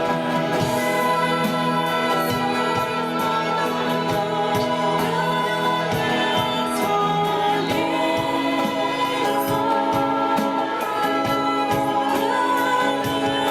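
Christian worship music: a choir singing over a band with a steady beat.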